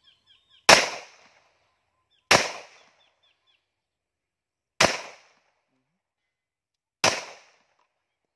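Four single shots from a .45 ACP Rock Island Armory 1911 pistol, fired at an unhurried, uneven pace 1.5 to 2.5 seconds apart. Each is a sharp crack that dies away within about half a second.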